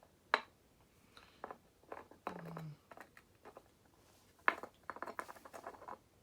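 Small clicks, taps and light rattles of hands handling a lamp socket and its wire connections: a sharp click near the start, another about four and a half seconds in, then a quick run of small clicks.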